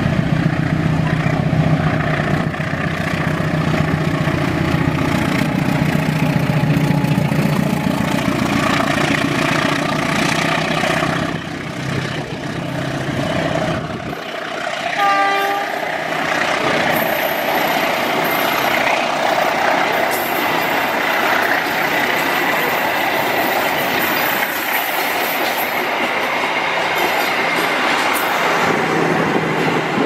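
Diesel-electric locomotive hauling a passenger train through a station at speed. The engine drone is strong until about halfway, then drops away as the coaches roll past, their wheels rattling and clattering over the rail joints and points. The horn sounds during the pass.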